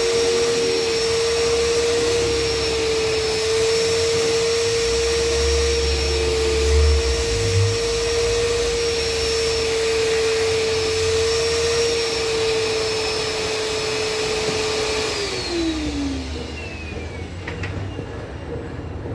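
Washing machine motor whirring steadily at speed with a constant high whine. About fifteen seconds in, the whine falls in pitch and the noise dies away as the motor winds down.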